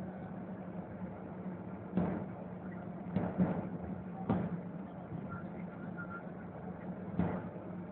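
MAN TGA 410 truck's diesel engine running steadily at cruise, heard from inside the cab, with several sharp knocks and rattles as the cab jolts over the rough road surface, a quick pair of them just past three seconds in.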